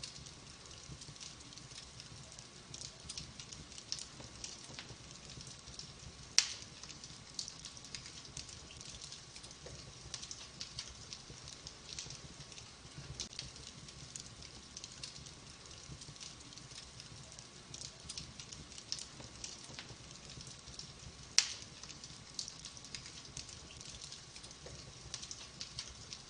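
Wood fire in a fireplace crackling, with frequent small snaps and two loud sharp pops, about six seconds in and again near twenty-one seconds.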